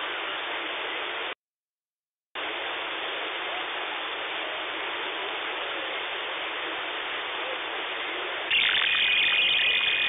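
Hiss of a single-sideband shortwave receiver on the 27 MHz band as it is retuned. The audio drops out for about a second near the start. Late on, a louder signal comes in with steady whistling tones over the hiss.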